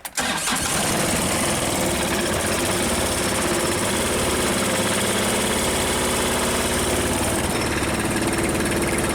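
LS MT125 compact tractor's three-cylinder diesel engine cold-starting: it catches almost at once and runs rough and shaking, firing on only two of its three cylinders in the cold.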